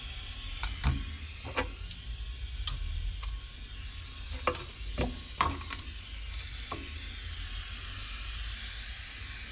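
A few scattered sharp clicks and light knocks from hands handling tools and speaker parts during speaker wiring work, over a steady background hiss.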